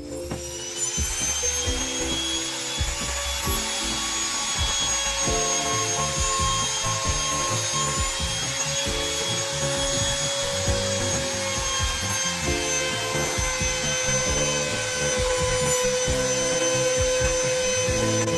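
Compact trim router running at speed, its bit cutting along the edge of a plywood sheet: a steady whine over the hiss of the cut.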